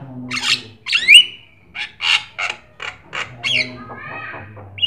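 Javan myna (jalak kebo) singing: a quick run of about nine short harsh notes, a couple of them with rising or falling whistled glides.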